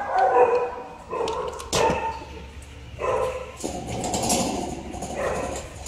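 A dog barking in short, high, excited bouts, about four times.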